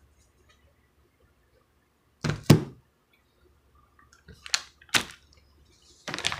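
A plastic tub of dates set down on a table with a sharp double thunk, followed by two lighter knocks as the packaging is handled, and a plastic bag of dates starting to crinkle near the end.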